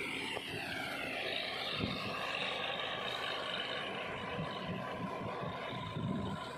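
Sonalika DI 60 tractor running under load, driving a rotavator through flooded paddy mud while puddling. A high whine falls in pitch over the first two seconds, then holds steady.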